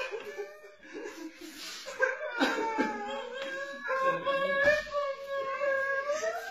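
A man wailing in long, drawn-out cries of mock mourning, the pitch held and wavering.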